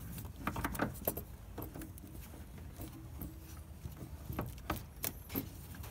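Irregular light clinks and knocks of a replacement turbocharger being handled and worked into position against the engine's exhaust manifold studs and surrounding parts.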